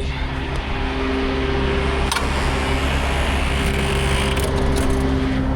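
Truck's diesel engine running steadily with a low hum, under a hiss that swells in the middle, and a few sharp clicks about two seconds in and again near the end.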